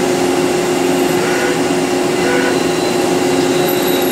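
CNC lathe drilling into spinning solid brass stock with a long twist drill: a steady machine whir with a constant hum that stays even throughout.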